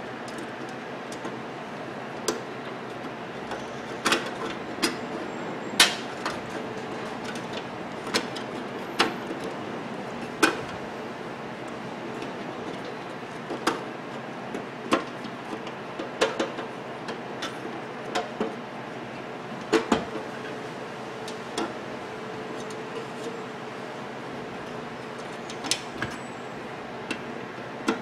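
Irregular sharp clicks and taps of a screwdriver, screws and wire connectors being handled while reassembling the magnetron wiring inside an opened microwave oven, over a steady low background hum.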